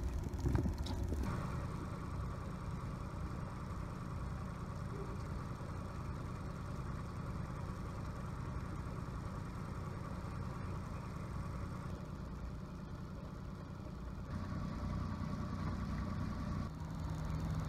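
Boat engine running steadily at low speed, with a few knocks at the start. About fourteen seconds in, the engine gets louder and a low hum joins it.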